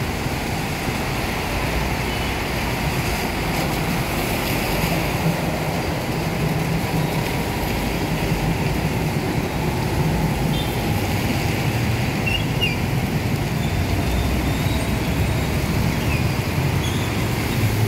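Steady city traffic on a rain-soaked road: buses and motorbikes passing with tyre hiss on wet asphalt and a low engine rumble, over the even hiss of rain.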